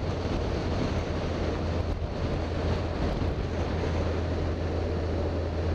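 Motorcycle riding at steady road speed: wind rushing over the microphone with the engine's low drone running evenly underneath.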